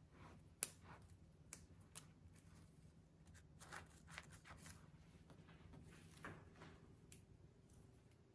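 Faint rustling and light clicks of cut flower stems being handled and pushed into a moss wreath base, with one sharper click about half a second in.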